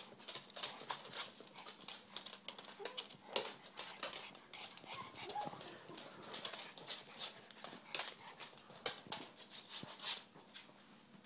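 Puppies' and a dog's claws clicking and pattering on a wood floor as they scamper and play. There are two faint short whimpers, about three and five seconds in.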